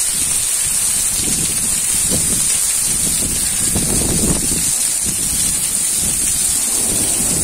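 Heavy rain pouring down, a steady loud hiss, with strong wind rumbling on the microphone.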